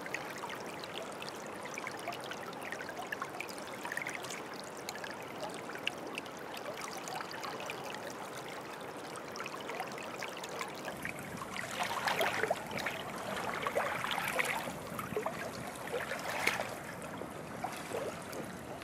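Shallow creek water trickling and gurgling over gravel, with splashes of waders stepping through it, louder for a few seconds past the middle.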